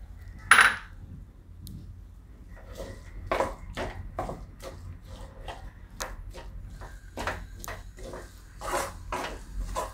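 Spatula stirring and scraping through a thick grated-turmeric vegetable mix in a steel kadai, with a sharp knock about half a second in and then a long run of short clinks and scrapes against the pan, over a low steady hum.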